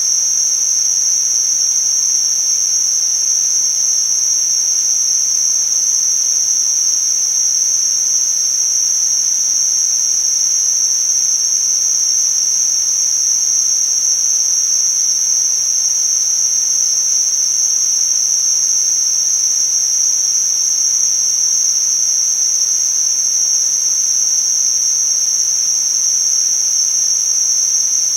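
Tinnitus-masking sound: a steady, high-pitched narrow band of hiss over a faint, even broad hiss, unchanging and without pulses.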